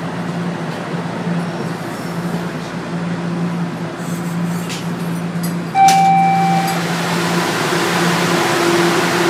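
Toronto Rocket subway train coming to a stop with a steady low motor hum, then its doors opening about six seconds in with a few clicks, a sudden rise in sound and a one-second chime tone.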